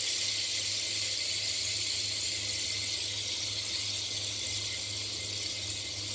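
Hot cooking oil sizzling steadily in a pan from the fried salted fish, slowly dying down, over a low steady hum.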